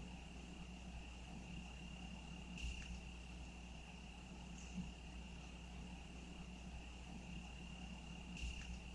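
A cricket's faint, continuous high trill held at one steady pitch, over a low background hum, with two soft clicks about three seconds in and near the end.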